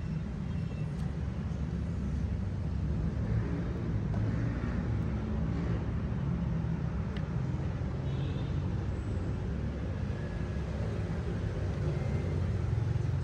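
Steady low background rumble, with a few faint clicks from hands working the brush cutter's plastic engine cover.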